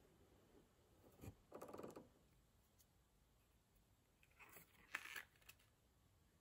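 Near silence broken by faint leatherworking sounds: a light knock about a second in, then a short scraping stroke of a knife cutting through leather, and a few soft handling noises of leather pieces on the work board around five seconds in.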